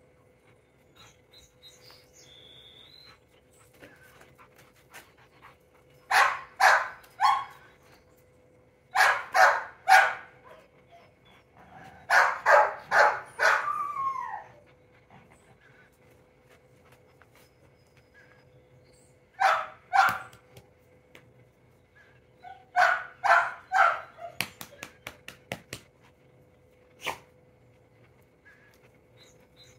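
A dog barking during tug play, in quick bursts of two to four barks separated by pauses of a few seconds; one burst ends in a falling, whine-like tail. Near the end a few faint short ticks follow.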